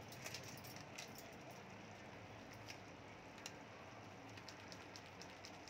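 Faint sizzling of mutton cooking in oil in an open pressure cooker, with scattered soft crackles.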